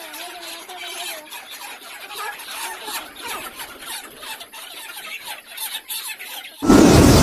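A flock of broiler chickens calling: many short overlapping squawks and cheeps, with one longer held call at the start. Loud music cuts in suddenly near the end.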